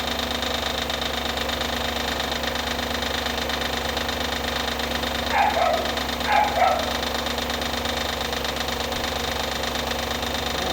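Audi A8 D2's 4.2-litre ABZ V8 idling steadily while a knock is traced; the mechanic places the knocking toward the timing-chain cover. A dog barks four times about halfway through.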